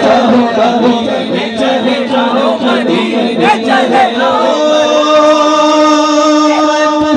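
A naat sung with a crowd of men chanting along in unison, loud through the amplification. About four and a half seconds in, the singing settles into one long held note.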